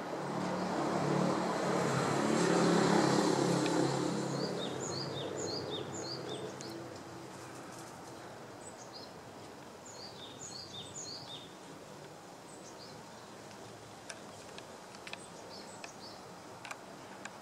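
A vehicle passes, its engine and tyre noise swelling for about three seconds and then fading away. Over it a small bird gives two runs of quick, high, falling chirps, and a few faint sharp clicks come near the end.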